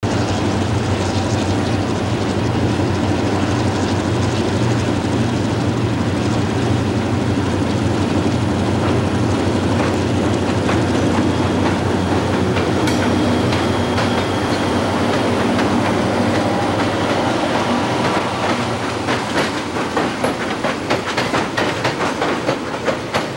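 Freight train's diesel locomotives running past, a loud steady engine drone. From about 19 seconds in the drone falls away and the wheels of the passing hopper cars clack rhythmically over the rails.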